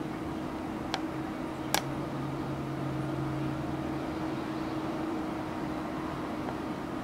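Steady low machine hum with a constant pitch, with two short sharp clicks, about a second in and again under a second later.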